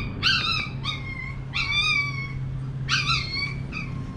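Baby macaque giving a series of about four high-pitched cries, each falling slightly in pitch.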